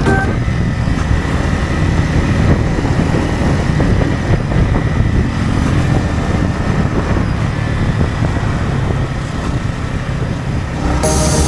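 Yamaha XSR155's single-cylinder engine running steadily at cruising speed, with wind and road rush heard from the rider's position.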